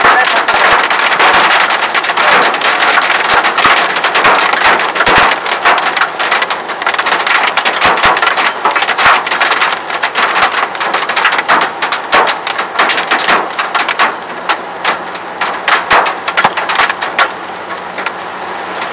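Hail striking a car's roof and glass, heard from inside the car: a dense clatter of sharp hits over a steady wash of noise, thinning out somewhat near the end.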